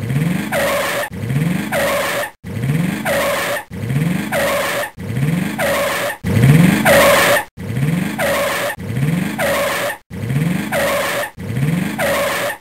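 A short sound effect played over and over, about ten times, once every second and a quarter, as slide bullet points appear. Each repeat has a low rising tone under a higher falling sweep and is cut off abruptly before the next.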